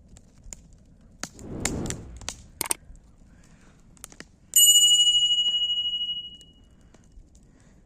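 Wood fire crackling with scattered pops and a short rush of noise, then, about four and a half seconds in, a single clear metallic ring, struck once, fading out over about two seconds; this ring is the loudest sound.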